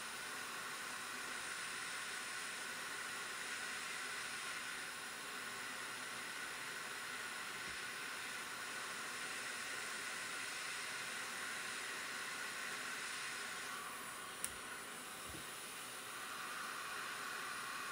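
Hot air rework station blowing a steady hiss of hot air onto the solder joints of a USB-C Thunderbolt port to loosen it for removal. A single sharp click comes about three-quarters of the way through.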